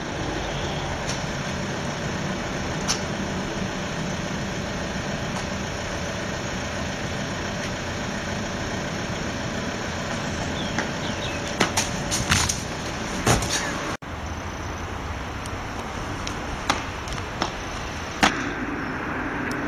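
Steady outdoor street noise with a low traffic hum, broken by a few short sharp knocks, likely a runner's footfalls on paving slabs, bunched around the middle and again near the end. The sound drops out for an instant about two thirds of the way through.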